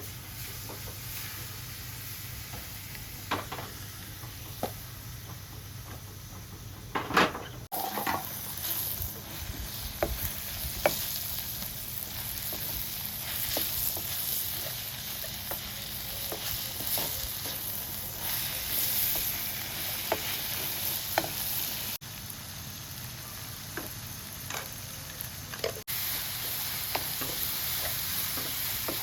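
Food sizzling as it fries in a pan, with a utensil stirring and knocking against the pan now and then. The sound changes abruptly a few times.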